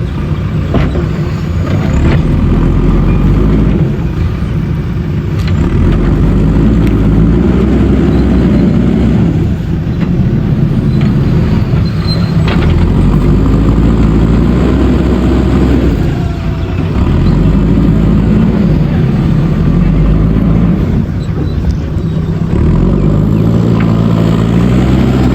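JCB backhoe loader's diesel engine running hard, its pitch rising and falling several times as the machine works.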